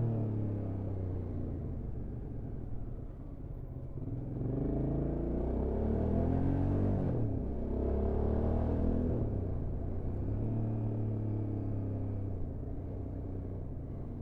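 Hyosung GT650R's V-twin engine running, its revs rising and falling. The pitch climbs from about four seconds in, drops sharply around seven seconds, climbs again until about nine seconds, then eases down and levels off.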